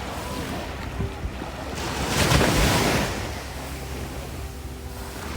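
Small waves breaking and washing up on a sand beach, with one wave rushing in loudly about two seconds in, over a steady rumble of wind on the microphone.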